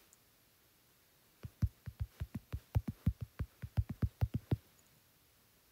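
Typing on an iPad's on-screen keyboard: a quick run of about eighteen taps, roughly six a second, starting about a second and a half in and stopping near the end.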